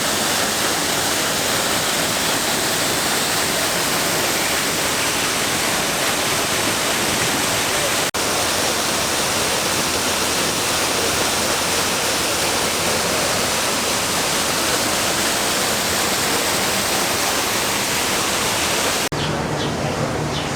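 A large indoor waterfall crashing down with a steady, loud rush of water. It drops out for an instant twice, about 8 seconds in and again near the end.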